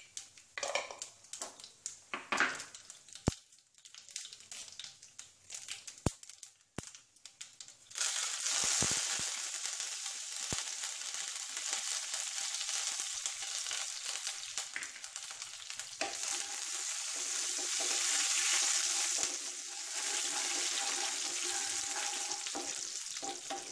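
Mustard seeds and urad dal in hot sesame oil giving a few scattered pops, then about eight seconds in a loud, steady sizzle starts as curry leaves go into the oil. The sizzle of the tempering carries on, swelling briefly later on, as it is stirred in the pan.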